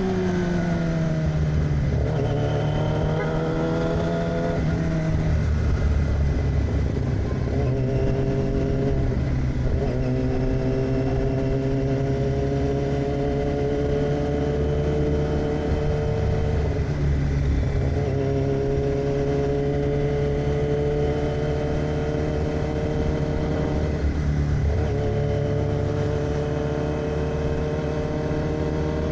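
2006 Yamaha R6's inline-four through an AR aftermarket exhaust while riding. The note falls off at the start as the bike slows, picks up again, then holds long, slowly rising stretches of acceleration, broken by brief dips a few times.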